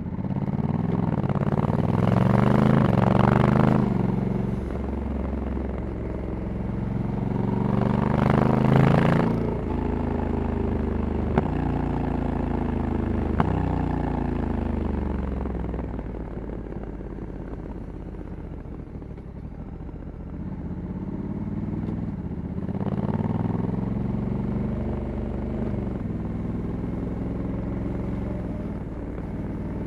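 Stock 2021 Honda Africa Twin 1100 DCT's parallel-twin engine on the move: it pulls up twice with rising pitch in the first ten seconds, eases off and winds down, then pulls up again about two thirds of the way through. Two short clicks come about a third of the way in.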